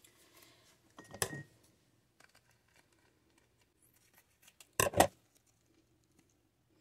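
Scissors snipping open a plastic seasoning sachet: light clicks and handling rustle about a second in, then a louder double snip about five seconds in.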